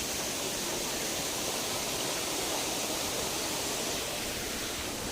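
Waterfall rushing, a steady even wash of water noise.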